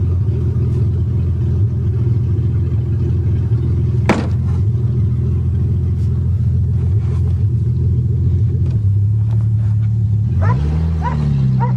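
1982 Toyota Cressida's engine and road noise while driving along at a steady speed, heard from inside the car, with one sharp click about four seconds in. Near the end the engine note rises and then levels off, as the car accelerates.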